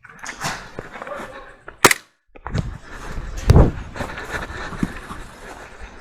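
Airsoft guns firing: a string of sharp snapping shots at irregular intervals, the loudest about two and three and a half seconds in, the second with a dull thump under it.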